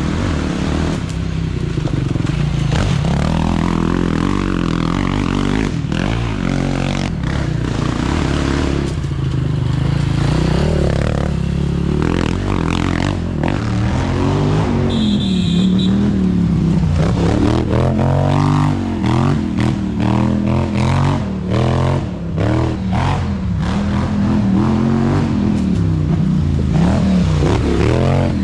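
Racing quad (ATV) engines revving hard, the pitch rising and falling over and over as the riders work the throttle on the dirt trail. One quad passes close near the end.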